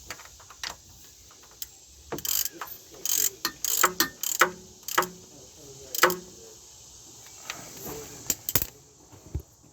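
Ratchet wrench clicking and metal tools clinking in irregular bursts as bolts are worked on a car's AC compressor mounting.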